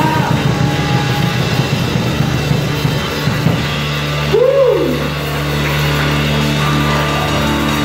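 Live band playing: drum kit and bass driving a steady beat, then about three seconds in the drumming drops away and the band holds a sustained chord, with a short sliding tone over it.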